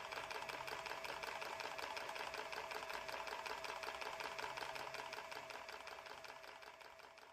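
A machine running with a rapid, even clatter of about nine strokes a second over a steady hum, fading out near the end.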